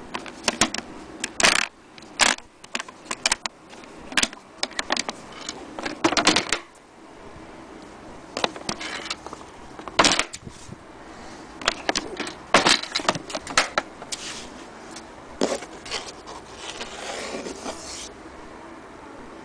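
Metal latches of a Singer Featherweight 221K sewing machine carrying case being handled: irregular sharp clicks and short scraping rubs, some of them loud, with brief pauses between.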